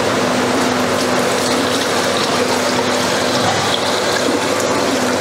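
Nimbu shikanji (lemon drink) being poured from a jug into the clear plastic bowl of a slush machine: a steady, continuous gush of liquid, with a low hum underneath that fades about halfway through.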